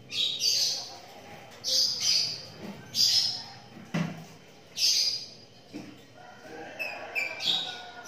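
A pair of lovebirds giving harsh, shrill squawking calls, about six in a row with short gaps, and a few thinner chirps near the end, as they mate. A single sharp knock about four seconds in.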